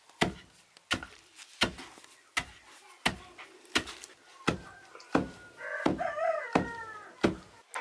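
Steady heavy thuds, about three every two seconds, with a rooster crowing once a little over halfway through.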